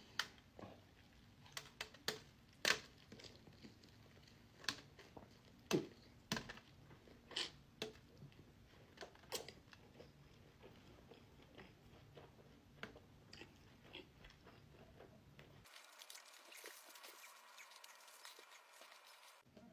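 A person chewing a big last mouthful of food, with irregular sharp mouth clicks that thin out after about ten seconds. About sixteen seconds in, the sound changes to a thin, even hiss with no low end.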